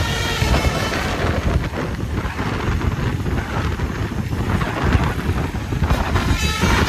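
Bus running on the road: a steady low rumble with wind noise on the microphone. Brief sets of held musical tones come in the first second and again near the end.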